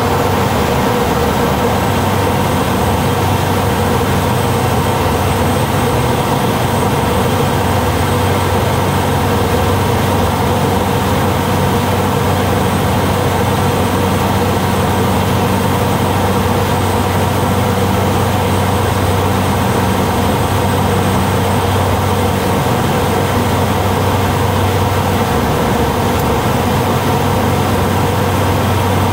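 Pratt & Whitney PT6A turboprop engine and propeller of a Cessna Grand Caravan amphibious floatplane, a steady, unchanging drone heard from inside the cockpit, on approach low over the water.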